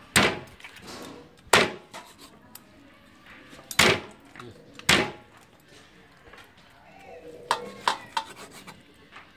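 Meat cleaver chopping raw meat on a wooden chopping block, each blow a sharp knock of the blade into the wood. There are four heavy chops spaced one to two seconds apart, then three lighter, quicker chops near the end.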